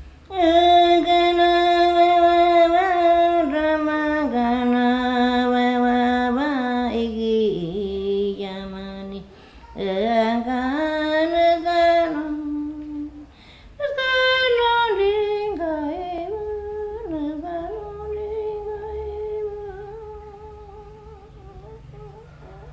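An elderly Shipibo-Konibo woman healer singing alone and unaccompanied, in long held notes that step down in pitch and swoop back up. She breaks off briefly twice, and the song grows fainter near the end.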